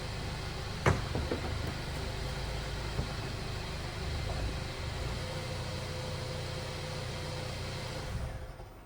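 A parked Mercedes-Benz convertible running with a steady low rumble, with one sharp click about a second in. The sound fades away near the end.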